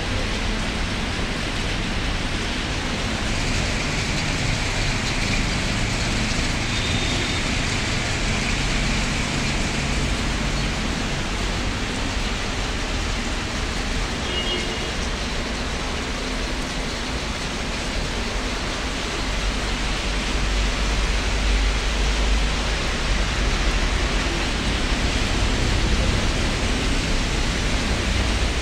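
Rain falling, a steady hiss, with a low rumble that grows louder in the second half.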